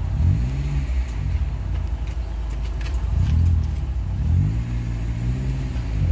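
Heavy diesel truck engine revving under load on a steep climb, its pitch rising and falling in surges, twice in a long arch. A truck being towed up the hill after stalling on the grade.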